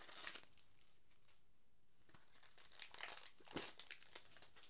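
Faint crinkling and rustling of plastic shrink-wrap being taken off a CD jewel case, with a few small sharp ticks about three and a half seconds in.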